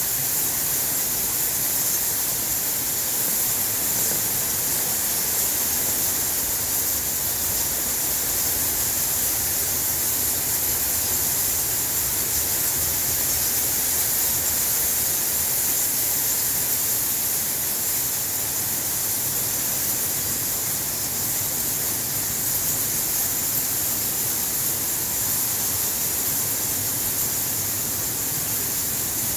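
A large cave colony of bats, their massed high calls merging into a loud, steady, high-pitched hiss.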